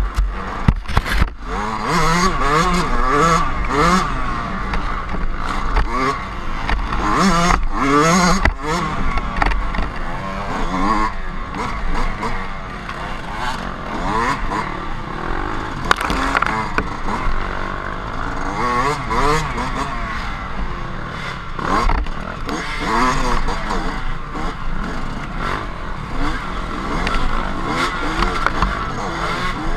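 Dirt bike engine revving up and down over and over as the bike is ridden along a rough trail, heard from a camera on the bike. Several sharp knocks, loudest about a second in and around eight seconds in.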